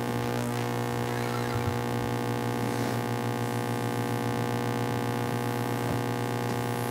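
Steady electrical hum and buzz from the sound system, with a few faint soft noises over it.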